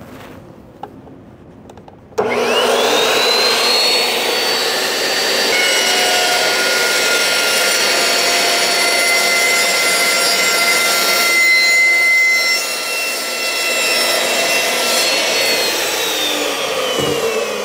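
Electric chop saw switched on, its motor whining up to speed about two seconds in, then running loud and steady as the blade cuts through a cylindrical lithium-ion battery cell. Near the end the motor whine falls as the saw spins down.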